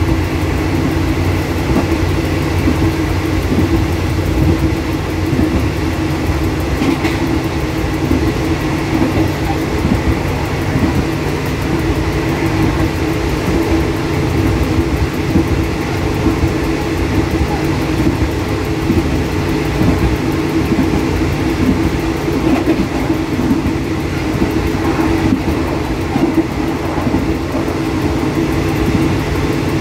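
Diesel express train running at close to 100 km/h, heard from inside the driver's cab: a steady engine drone with wheel-on-rail rumble and rushing wind.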